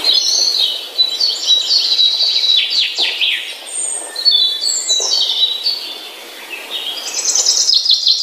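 Birds chirping and singing: many quick, overlapping chirps, trills and downward-sliding whistles, easing off briefly about six seconds in before picking up again.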